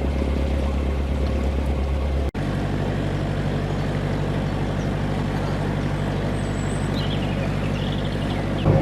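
Narrowboat engine running steadily with a low, even throb, breaking off for an instant about two seconds in.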